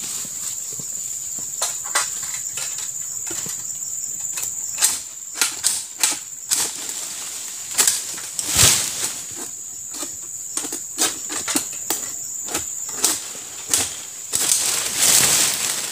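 Insects droning at one steady high pitch, with irregular sharp clicks and rustles over it; the loudest are a click about halfway through and a burst of rustling near the end.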